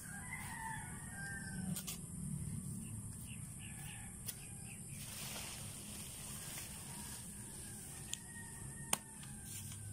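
Dry banana leaves rustling and crackling as they are handled and tied into a bundle, with a few sharp snaps of the brittle leaf. A rooster crows faintly in the first couple of seconds.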